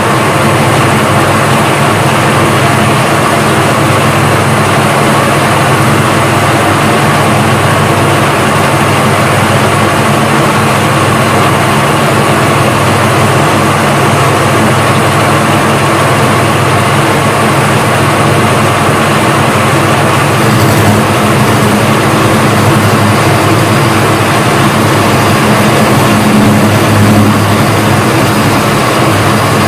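Small engine lathe running under power while turning a metal workpiece: a loud, steady machine hum with a few constant tones from the motor and headstock gearing.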